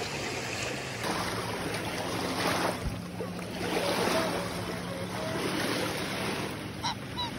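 Small lake waves washing in at the shoreline around waders, with wind on the microphone.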